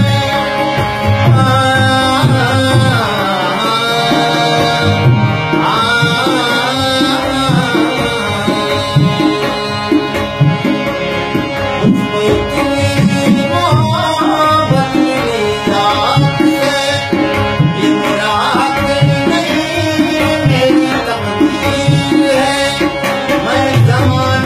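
A harmonium playing a melody over a steady drum beat, with a man's voice singing over it at times.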